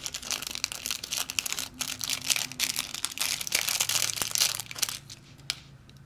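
Clear plastic wrapper crinkling and crackling in the hands as it is unwrapped, dying down about five seconds in.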